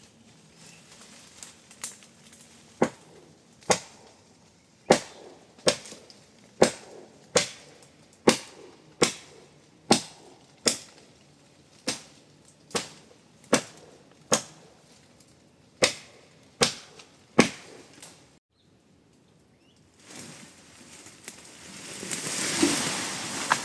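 A long run of sharp knocks at a steady pace of a little more than one a second, stopping about 17 seconds in. Near the end a rushing noise swells up.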